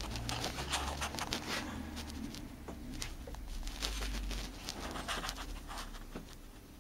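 Irregular rustling and small light clicks over a low rumble, busiest in the first couple of seconds and again about two thirds of the way in.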